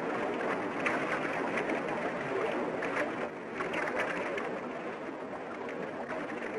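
River rapids: rushing whitewater, a steady wash broken by many small irregular splashes.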